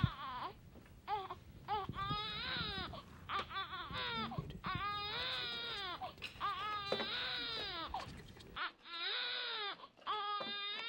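A baby crying: a string of wailing cries of about a second each, repeating one after another.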